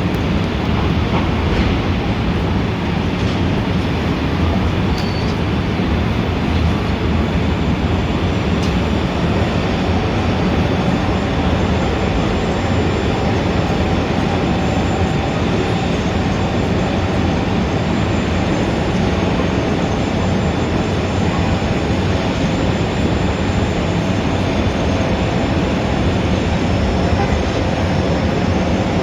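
Steady, dense city rumble, heaviest in the low end, with faint whining tones coming in about ten seconds in.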